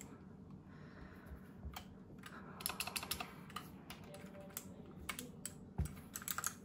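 Keys being typed on an RK G68 mechanical keyboard: scattered keystroke clicks, with two quick runs of typing, one about two and a half seconds in and one near the end.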